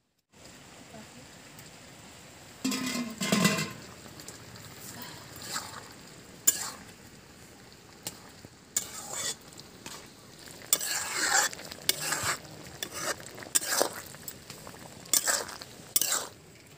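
A spoon stirring and scraping a soybean, ivy gourd and potato curry in a pan as it fries and sizzles, in irregular strokes over a steady sizzle.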